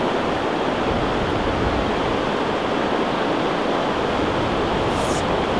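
Steady rushing of a fast, shallow river flowing over a rocky bed.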